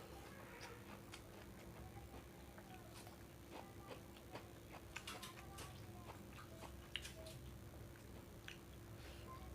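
Faint chewing and mouth clicks of someone eating fried rice, with scattered sharp clicks. The sharpest click comes about seven seconds in.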